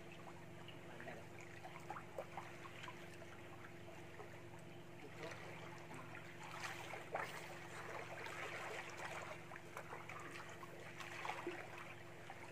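Swimming pool water lapping and trickling faintly, with small irregular splashes, over a steady low hum.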